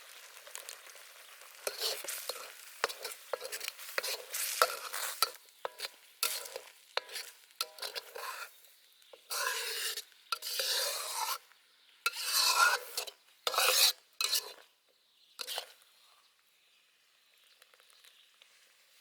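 Fried chicken feet being stirred and tossed with seasoning in a pan: irregular scraping and clattering strokes of a utensil, with a light sizzle. The strokes stop about three seconds before the end.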